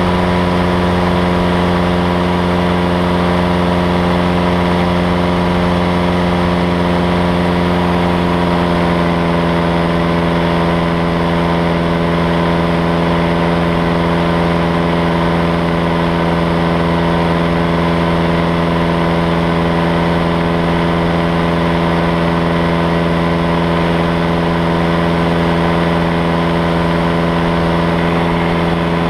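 Paramotor engine and propeller running steadily in flight, holding one even pitch.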